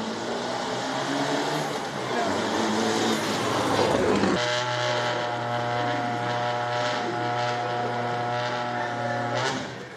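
Rally car engines at a stage start. For the first four seconds an engine revs and builds as a car pulls away. The sound then changes abruptly to another rally car's engine running at a steady pitch, with sharp crackles and pops over it.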